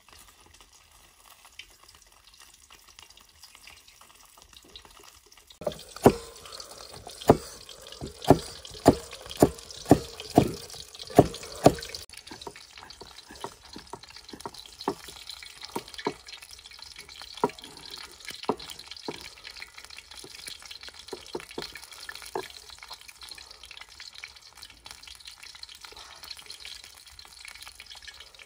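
Cleaver chopping on a wooden block: about nine sharp knocks at roughly two a second starting about six seconds in, then lighter, scattered chops. Fish sizzles in hot oil in a wok underneath.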